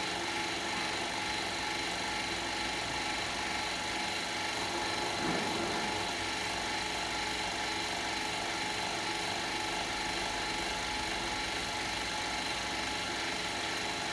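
Mechanical vacuum pump running steadily with an even hum and hiss, pulling the distillation system down to about 1 mbar.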